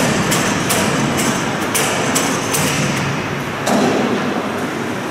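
Sharp knocks in a factory workshop, about two to three a second, over a steady din of machinery. The knocks stop about three seconds in, and a heavier thud follows shortly after.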